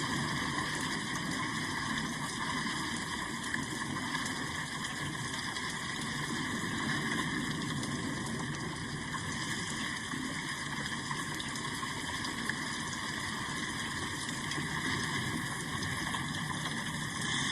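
Steady rain falling: an even, unbroken hiss with no single drops or gusts standing out.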